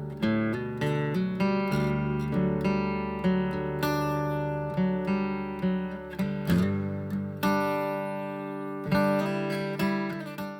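Background music: acoustic guitar picking notes and strumming chords, fading out at the end.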